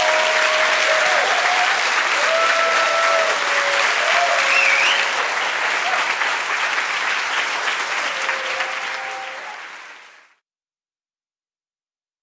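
Audience applauding, with a few voices calling out over the clapping; the applause fades and cuts off about ten seconds in.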